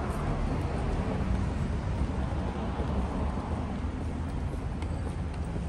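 City street traffic: a steady wash of cars running along a busy avenue, with no single event standing out.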